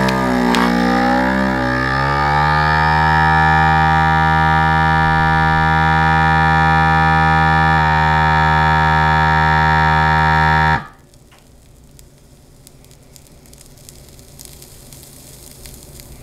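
Countertop vacuum sealer's pump running a vacuum-and-seal cycle, drawing the air out of a bag around a salmon fillet. Its hum wavers in pitch over the first two seconds, then holds steady, and stops abruptly about eleven seconds in as the cycle ends.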